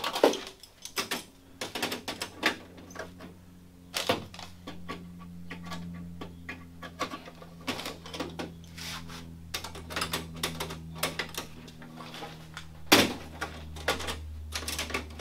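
Irregular clicks, taps and light knocks of aluminium sheet-metal parts and hand tools being handled and fitted on a light-aircraft horizontal stabilizer. A sharper knock comes about four seconds in and another about thirteen seconds in, over a faint low hum.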